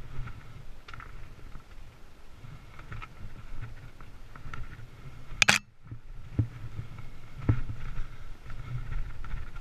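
Mountain bike being ridden over rough trail: a steady rumble of tyres and wind with small rattles and knocks from the bike over bumps. A single sharp, loud crack comes about halfway through, with two more thumps shortly after.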